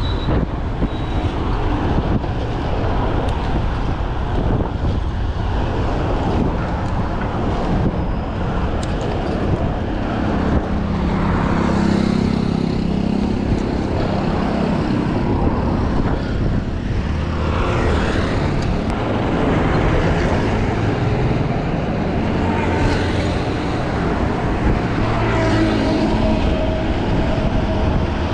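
Road traffic heard from a moving road bike: cars and motorbikes running along the highway, with wind rushing over the microphone. An engine hum comes up in the middle.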